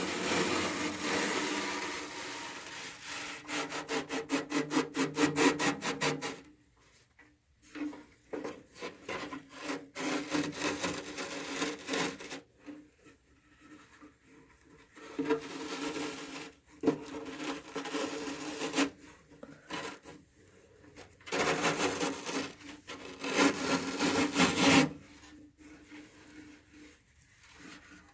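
Repeated back-and-forth scraping and rubbing on the steel of an old toolbox, in bursts with short pauses and at times about four strokes a second, as dirt and debris are worked out of it.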